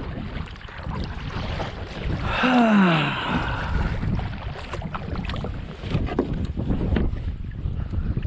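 Wind buffeting a GoPro's microphone, a steady low rumble. About two and a half seconds in a man gives one short falling groan, and a few sharp knocks follow later.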